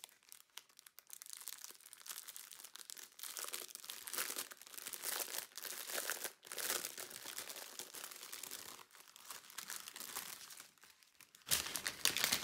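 Crinkling plastic wrap on a strip of sealed diamond-painting drill bags as it is handled and turned over, in uneven spurts, with a louder rustle near the end.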